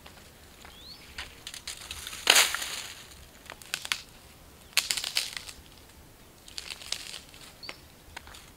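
Dry twigs and leaf litter crunching and snapping in several short bursts about two seconds apart, as dry brush is gathered or broken. A few faint short rising bird chirps come in between.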